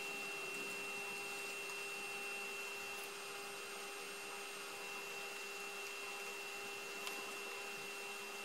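A steady hum with a thin, high whine above it, and a faint click about seven seconds in.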